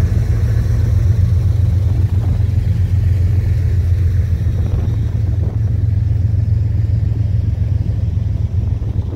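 Loud, steady low rumble of a freight train passing close by: BNSF diesel locomotives pulling away from a yard, then double-stack intermodal well cars rolling over the rails.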